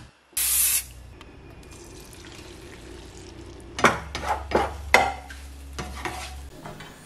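Eggs being scrambled in a frying pan on a gas hob. A short loud hiss comes just after the start, then a steady low hum, and between about four and six seconds in a run of spatula scrapes and knocks against the pan.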